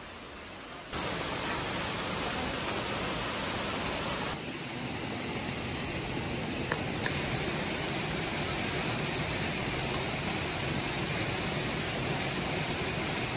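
Rushing river water flowing over boulders: a steady, full hiss of moving water that comes in abruptly about a second in.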